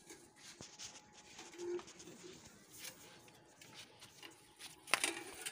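Quiet background with a few faint, short low sounds, then a sharp knock near the end.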